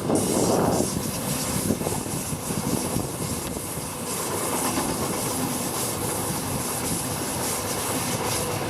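Passenger train running past on the line: a steady rumble and rail noise, with a faint steady whine in the second half.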